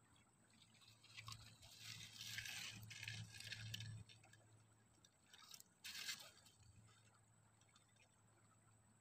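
Faint scraping and crunching from about one to four seconds in, with a second short scrape about six seconds in.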